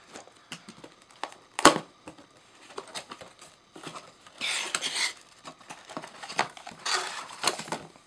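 A cardboard box and plastic packaging being handled and opened: scattered light clicks and taps, a sharp knock about a second and a half in, and two stretches of crinkling, one around the middle and one near the end.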